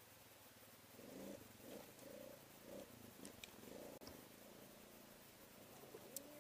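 Faint ATV engine running, heard very quietly, its pitch rising and falling several times as the rider works the throttle.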